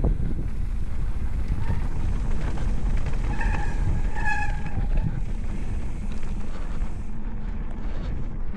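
Wind buffeting the microphone and the steady rumble of a mountain bike rolling fast down a trail, with two short high tones near the middle.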